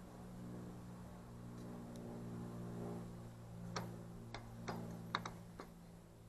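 A few sharp clicks of metal starter parts knocking together as the starter's end head is fitted. They come about four seconds in, over a steady low hum.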